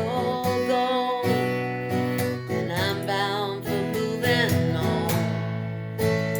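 Acoustic guitar strumming chords in a steady rhythm under a sustained, wavering sung melody.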